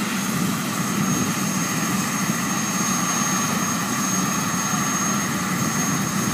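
Air-ambulance helicopter's turbine engine running on the ground, a steady noise with a thin, high, constant whine over it.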